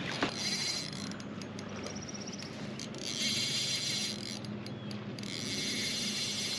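Fishing reel ratcheting in three spurts of rapid clicking while a fish is on the line and the rod is bent.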